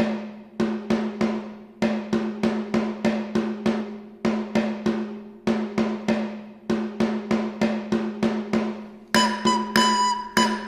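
Background music: a pitched drum beats a repeating pattern of quick strikes, and a high melody instrument joins about nine seconds in.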